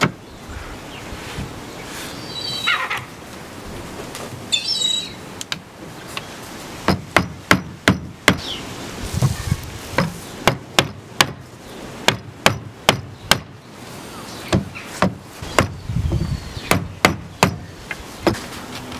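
Rubber mallet knocking on a teak bench's broken top back rail, tapping the split rail back into line: a run of sharp knocks, about two a second in short bursts, starting about seven seconds in. Birds chirp in the first few seconds.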